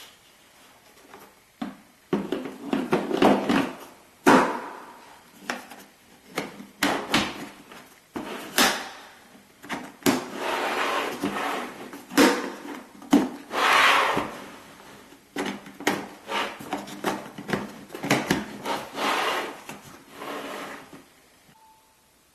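Hard plastic pet carrier being handled, with irregular clicks, knocks and scraping of plastic parts. It stops about a second before the end.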